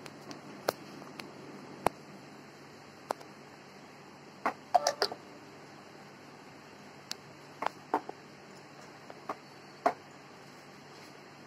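Hands kneading wheat flour and water into dough in a glass bowl: scattered sharp taps and clinks against the glass, with a quick cluster of them about five seconds in as a drinking glass of water is tipped over the bowl.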